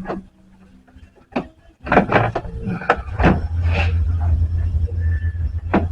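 Scattered clicks and knocks of tools and parts being worked in a car's engine bay. A steady low rumble comes in about two seconds in.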